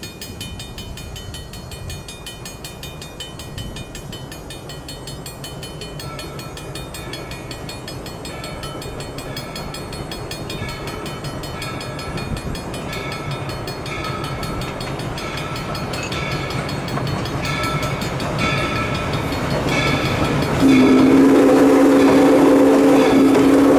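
ALCO-built steam locomotive #97 approaching, its bell ringing about once a second over a low rumble that grows steadily louder. About 21 seconds in, its multi-note chime steam whistle starts blowing, loud and held.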